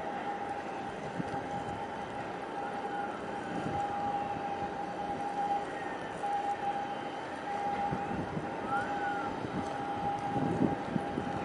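Steady hum of a large ship's machinery with a constant high whine, over wind and water noise. A couple of faint short chirps sound about 3 and 9 seconds in, and a gust buffets the microphone near the end.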